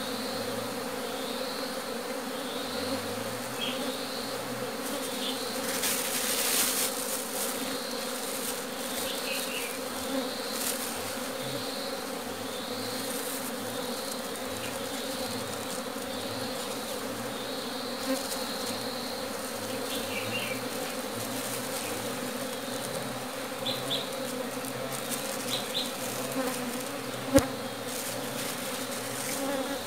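Honeybees buzzing steadily around a hollow-log hive as bees from separate colonies are scooped in by hand and combined into one colony. A brief rustle comes about six seconds in and a single sharp tap near the end.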